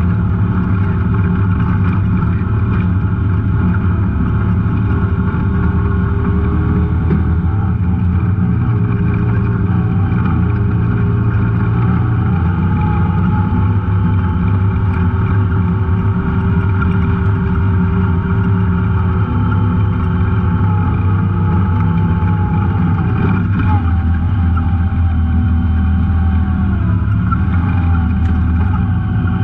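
Off-road vehicle engine running steadily while riding a dirt trail, its pitch shifting slightly with the throttle near the end.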